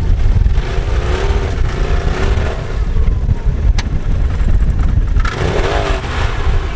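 Vehicle engine running and revving under a heavy low rumble, with one sharp click about four seconds in.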